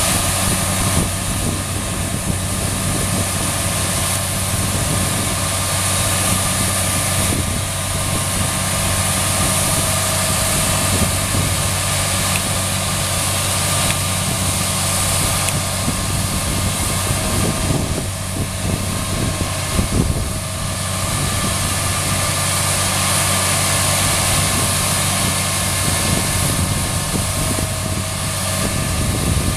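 Combine harvester running steadily at working speed while its unloading auger empties soybeans into a truck, with a steady hiss over the engine tone.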